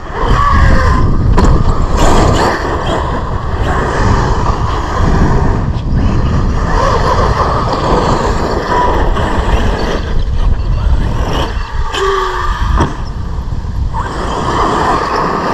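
Arrma Kraton 8S RC car's brushless motor whining in short bursts as it is driven hard over dirt jumps, over a steady rush of wind noise on the microphone.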